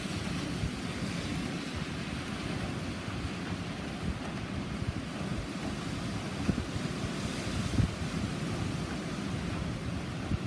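Typhoon wind and heavy rain: a steady rush with a gusty low rumble of wind buffeting the microphone.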